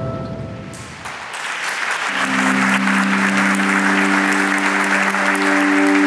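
Audience applauding, starting about a second in, over background music whose long held notes come in about two seconds in.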